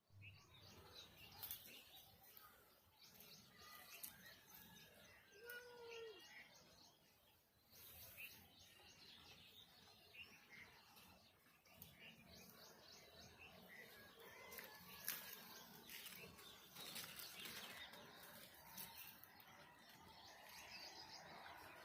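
Faint birds chirping: scattered short whistled calls and glides, with a few light clicks.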